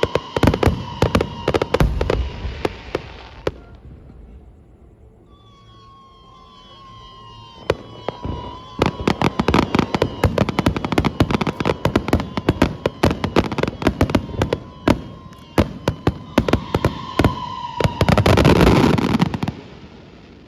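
Aerial fireworks show heard from several hundred metres away: rapid volleys of bangs and crackles, a lull of a few seconds about four seconds in, then dense crackling bursts again, building to a heavy rumbling barrage near the end before fading. Thin whistling tones that slowly fall in pitch sound through much of it.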